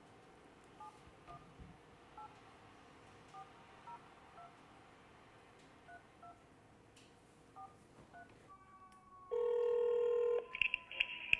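Smartphone keypad dialing tones: a string of about a dozen short two-note beeps, one per key, as a phone number is tapped in by hand. Near the end comes a louder steady tone lasting about a second from the phone as the call is placed.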